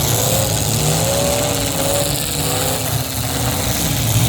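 Demolition derby cars' engines running and revving, their pitch swinging up and down over a steady low engine drone.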